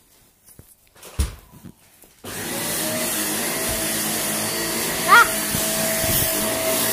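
Vacuum cleaner switched on about two seconds in, then running steadily with a constant hum. A brief, high-pitched rising squeal sounds over it about five seconds in, after a few light knocks in the quiet start.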